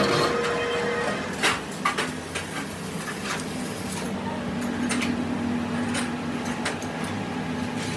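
Workshop noise: a machine hum that stops about a second in, followed by a few scattered light knocks and clatters.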